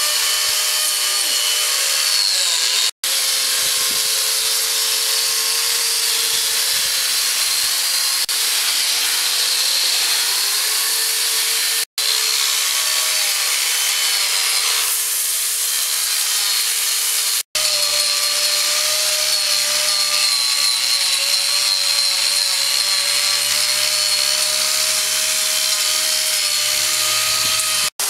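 Angle grinder fitted with a wood-carving cutter attachment, running at speed and cutting into a log, a steady high whine over the noise of wood being chewed away. The sound drops out for an instant three times and resumes at once.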